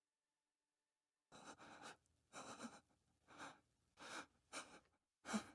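Silence, then from about a second in a person's faint, ragged breathing: short breaths roughly once a second, like panting after exertion.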